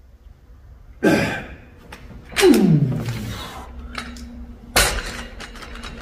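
A man strains through the last rep of a set of incline dumbbell presses: a sudden grunt, then a long groan falling steeply in pitch. Near the end, a sharp thud as the heavy dumbbells are set down on the floor mats, followed by a few light clicks.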